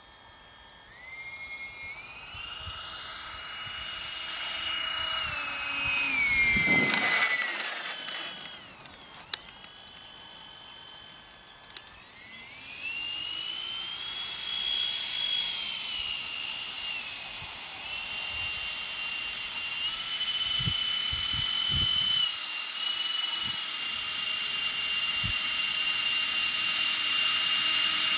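Twin 80 mm electric ducted fans of a Freewing A-10 RC jet whining. The pitch falls as the jet passes about seven seconds in, and the sound drops back for a few seconds. At about twelve seconds it throttles up to a steady whine that grows louder as the jet taxis across the grass toward the microphone.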